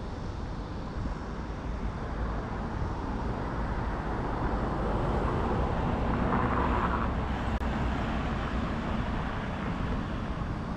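City street traffic: a steady rush of road noise that swells as a vehicle passes, loudest about six or seven seconds in.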